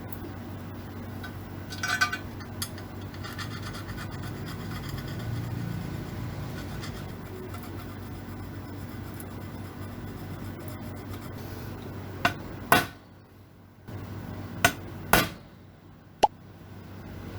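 Rubbing and scraping, with a ringing metal clink about two seconds in and a few sharp knocks near the end.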